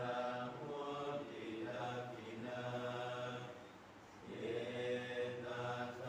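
Buddhist chanting by a group of voices in unison, on long, evenly held tones, with a short pause for breath about four seconds in.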